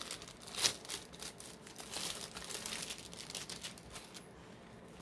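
A clear plastic bag crinkling as hands handle and open it, with a sharp crackle under a second in; the crinkling quietens near the end.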